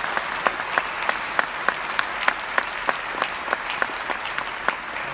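Crowd applauding, with one person's claps close by standing out at about three a second.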